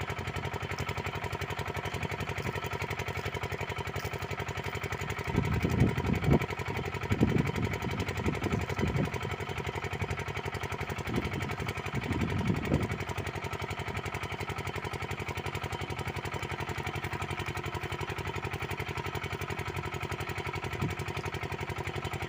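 A motor running steadily with a constant droning hum. Irregular low rumbling knocks come through between about five and thirteen seconds in.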